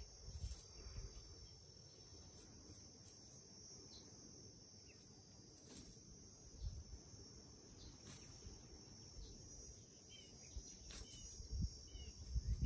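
A faint, steady high-pitched insect drone, with a few short chirps near the end.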